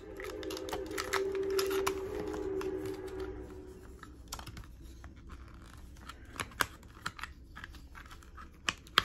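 Light plastic clicking and rattling of a toy gel-ball blaster being handled while its battery is fitted, with a few sharper clicks near the end. A steady hum runs under the first few seconds.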